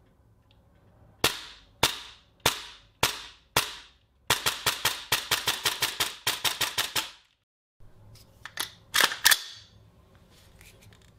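Tokyo Marui MTR16 gas blowback airsoft rifle firing: five single shots about half a second apart, then a fast string of shots at about five or six a second. After a short break come a few more sharp clacks, two of them loud.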